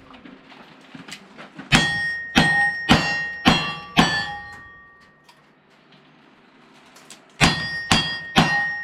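Rapid gunshots at steel targets, each hit leaving the steel ringing: five shots about half a second apart, a pause of about three seconds, then another quick string starting near the end.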